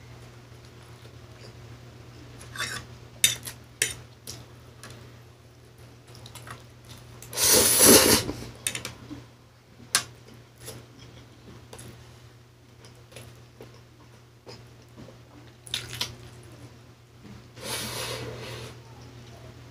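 Close-up eating sounds of a man chewing instant pancit canton noodles on bread: soft mouth noises with a few sharp clicks and taps. Two louder breathy rushes of air, one about seven seconds in and one near the end, over a steady low hum.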